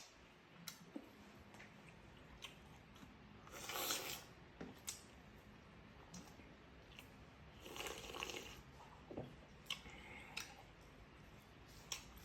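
Close-miked chewing and biting of pempek, a fried fish cake, with two longer, louder bouts of chewing about four and eight seconds in and small mouth clicks between.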